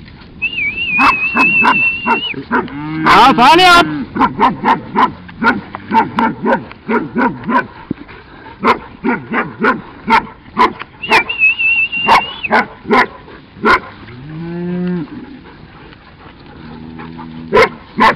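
Highland cattle mooing as the herd is driven, with low calls about three seconds in and again near the end. Regular thumps of walking footsteps, about two a second, run under them, and a high wavering whistle sounds twice.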